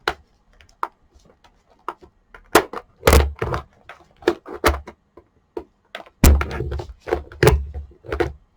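Plastic rice cooker housing being pried and knocked apart by hand: an irregular run of clicks, knocks and heavier thunks, busiest in the second half.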